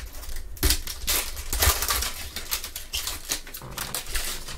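Crinkling of a foil trading-card pack wrapper and cards being handled in gloved hands: a run of irregular crackling rustles.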